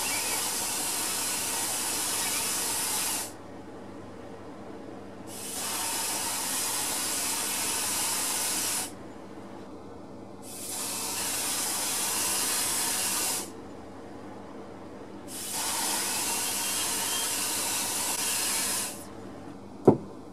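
Homemade mouth-blown wooden airbrush hissing as breath drives a fine mist of paint out of it, in four long blows of three to four seconds each with short pauses between. A single sharp knock comes near the end. An exhaust fan hums steadily underneath.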